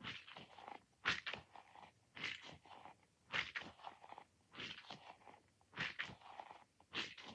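A squishy ball being squeezed repeatedly: seven short squishes at an even pace of about one a second.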